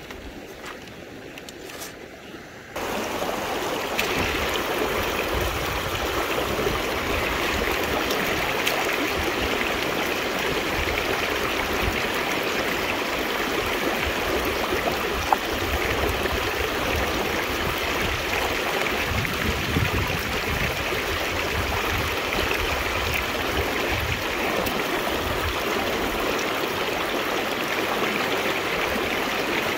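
River water running steadily. It comes in suddenly and louder about three seconds in, after a quieter stretch.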